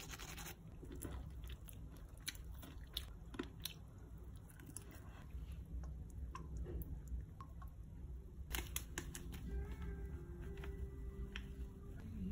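Faint, scattered clicks and soft wet handling sounds of raw milkfish pieces being seasoned on a wooden cutting board, over a low steady hum.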